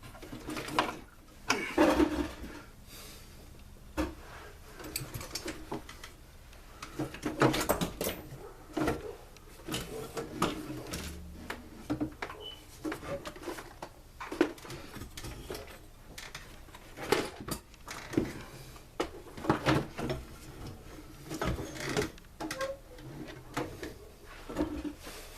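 Tools and blower parts being handled during a teardown: irregular clicks, knocks and rattles of metal and plastic, with a few sharper knocks.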